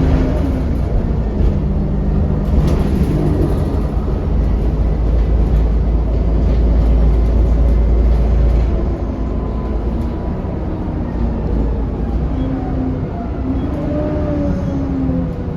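ADL Enviro400 double-decker bus's diesel engine heard from on board, running with a low rumble under way; the rumble eases about nine seconds in, and the engine note rises and falls near the end.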